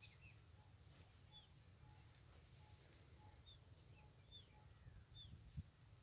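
Faint field ambience: a bird calling in short, high chirps about once a second over a low rumble, with a soft thump near the end.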